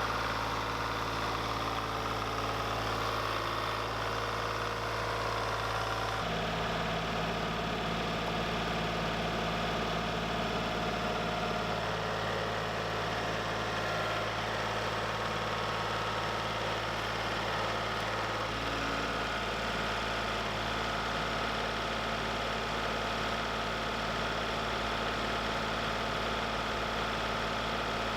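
Sawmill's gasoline engine running steadily, its note shifting slightly about six seconds in and again a little before twenty seconds.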